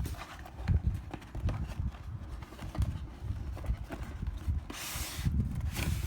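Cardboard model-car box being handled and opened: irregular knocks and bumps with a few clicks, and a brief rustling scrape about five seconds in.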